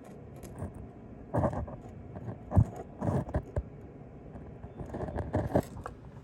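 Metal tools and engine parts clinking, knocking and scraping in irregular bursts as parts are worked loose on the engine, the loudest knock about two and a half seconds in.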